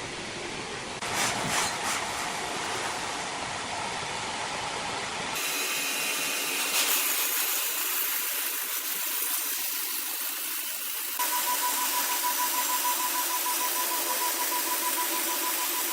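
Sawmill machinery running and cutting wood, a steady mechanical noise that changes abruptly about five and eleven seconds in. From about eleven seconds a steady high whine with a fast pulse runs on.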